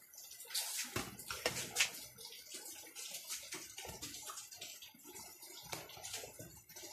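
Rain falling and dripping, an irregular patter of drops and spatters over a steady hiss.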